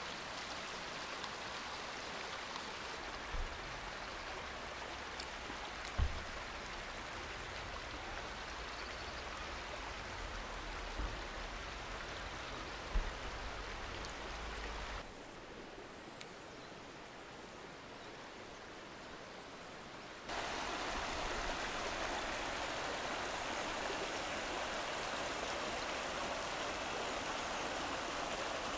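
Steady rush of flowing water, with a few soft low thumps. It drops in level about fifteen seconds in and comes back louder about five seconds later.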